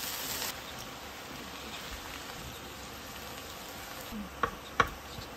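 Shredded cabbage and vegetables sizzling in a hot frying pan as they are stir-fried, the hiss louder for the first half second and then steady. Near the end, two sharp knocks of the wooden spatula against the pan.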